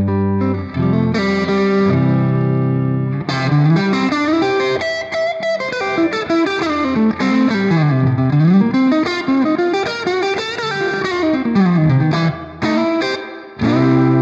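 Electric guitar played through a Strymon Flint V2 reverb and tremolo pedal. It starts on held chords, then plays fast runs of notes climbing and falling for about ten seconds, and ends on a ringing chord.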